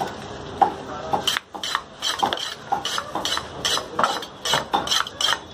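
A large knife chopping fish on a wooden block: sharp, repeated chops at about three a second.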